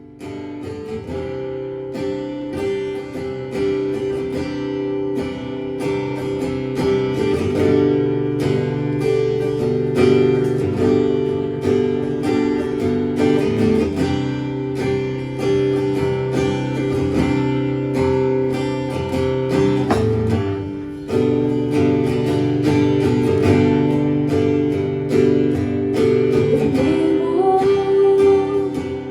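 Acoustic guitar strummed in a steady rhythm of chords, starting the next song from quiet.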